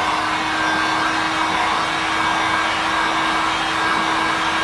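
Handheld electric heat gun running steadily, its fan blowing hot air with a constant hum under the rush of air, force-drying fresh touch-up paint.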